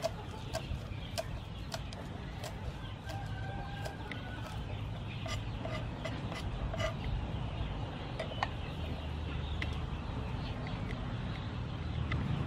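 Knife chopping green onions on a thick wooden chopping block: sharp knocks about twice a second at first, becoming sparser and irregular after a couple of seconds.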